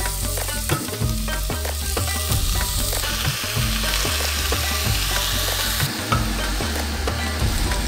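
Onion, ginger and curry powder frying in oil in a steel pot, sizzling as cubed pumpkin is added and stirred in with a wooden spoon; the sizzle is strongest in the middle few seconds. Background music with a steady beat runs underneath.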